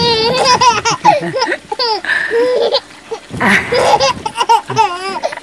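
A baby laughing in repeated bursts of high, wavering laughter.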